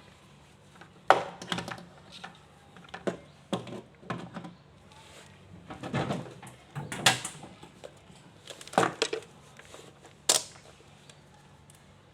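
Irregular sharp clicks and knocks of tools and parts being handled during a washing-machine drain-pump repair, the loudest about a second in and about seven seconds in, over a faint steady low hum.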